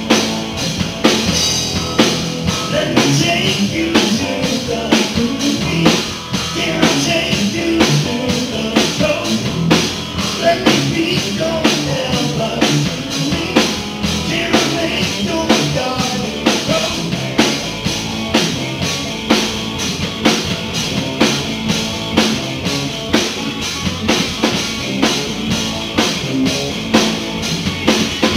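Live blues-rock band playing, with drum kit, electric guitar and bass keeping a steady beat. Over it an amplified blues harmonica is played, cupped against a handheld vocal microphone.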